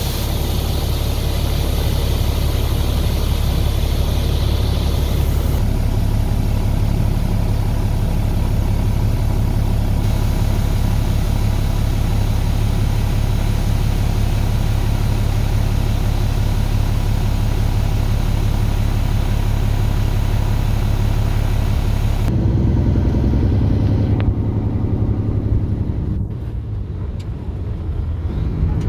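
Semi truck's diesel engine running, heard from inside the cab, under a steady hiss. About 22 seconds in, the hiss drops away and the engine note changes as the truck pulls out of the unloading shed.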